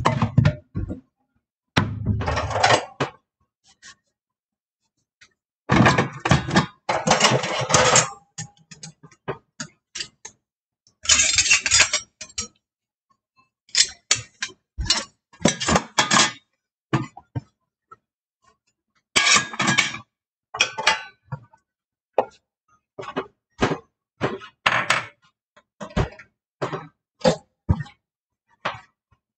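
Kitchen dishes and utensils being handled and dried with a towel: irregular clunks, knocks and clatters, with a few longer rattling spells of about a second.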